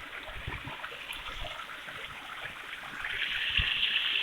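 Running water of a small waterfall, a steady rushing that grows louder about three seconds in.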